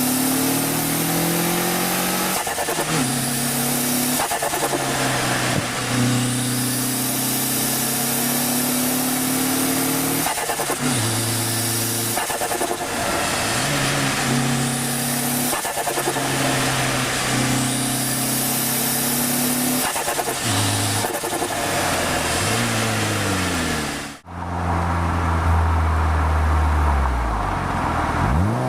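1998 Mitsubishi Lancer Evolution V's turbocharged inline-four with a straight-piped exhaust, accelerating hard through the gears: the pitch climbs and drops at each shift, about a dozen times. About 24 seconds in, the sound cuts abruptly to a lower, steadier engine note.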